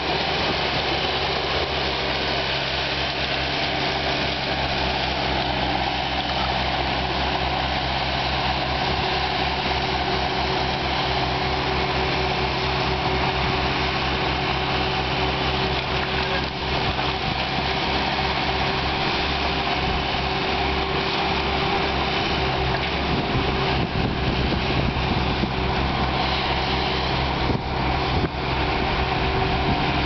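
Bobcat skid steer's engine running steadily as the machine drives and works its tub log splitter attachment.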